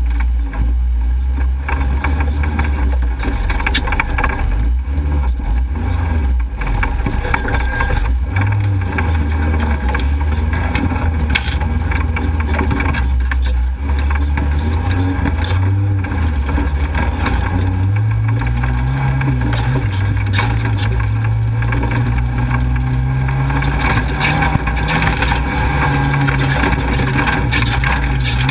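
Off-road race vehicle's engine running hard, heard from a camera mounted on the vehicle. The engine note holds low, then climbs higher about two-thirds of the way through and stays up, with scattered knocks from the rough trail.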